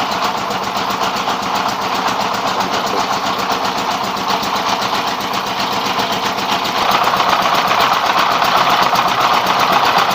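Rice milling machine driven by a 24 hp single-cylinder 'dompeng' (Dongfeng-type) diesel engine, running steadily with a fast even engine beat under the rushing noise of the mill. It gets somewhat louder about seven seconds in.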